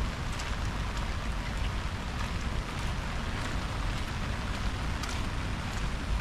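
Steady rain falling, an even hiss with scattered sharper drop hits, over a low rumble underneath.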